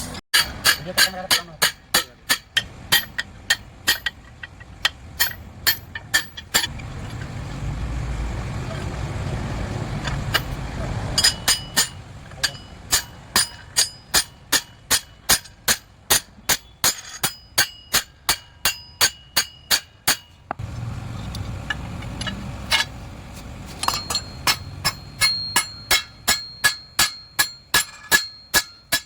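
Hammer striking steel in a steady run of about two blows a second, each with a metallic ring, pausing twice for a few seconds.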